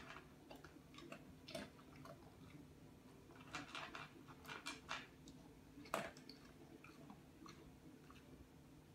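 An animal chewing food, faintly: scattered small crunches and clicks, busiest around the middle, with one sharper click about six seconds in, over a low steady hum.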